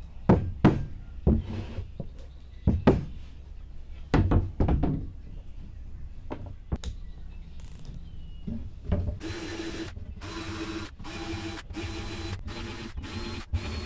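Several sharp wooden knocks and thumps as a drilled plywood panel is handled on the bench, then a DeWalt cordless drill with a sanding drum run in about seven short bursts, sanding the inside edges of 2-inch holes in the plywood.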